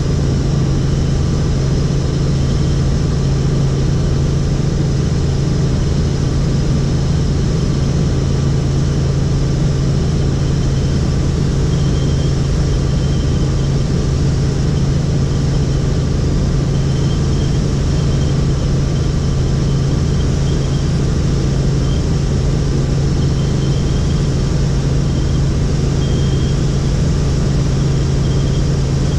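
Helicopter in flight: a loud, steady drone of rotor and engine with a strong low hum that does not change.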